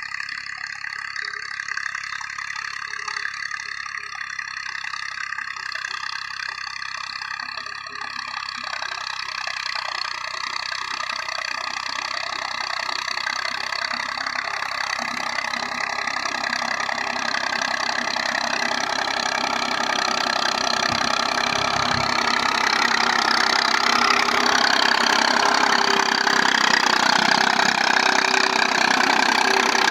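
Massey Ferguson tractor's diesel engine running steadily under load while pulling an 11-tine cultivator through dry soil. It grows steadily louder as the tractor comes closer.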